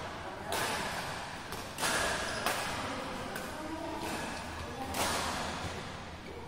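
Badminton rackets striking the shuttlecock a few times during a rally, each hit a sharp smack followed by a long echo from the hall.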